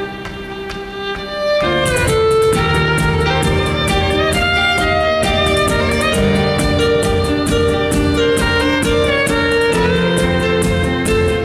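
Violin playing a melody over an electronic backing track. After a thinner, quieter opening, the full beat with drums comes in about two seconds in.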